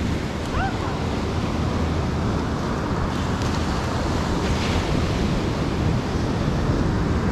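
Steady rushing of ocean surf on a beach, mixed with wind buffeting the microphone.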